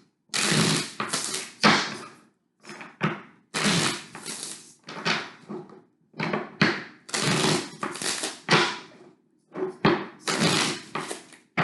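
A deck of tarot cards being shuffled by hand: a series of short rustling, slapping bursts, about one a second.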